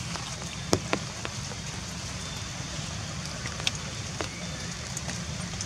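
Steady outdoor background hiss with a low hum underneath, broken by a few scattered sharp ticks, the loudest just under a second in.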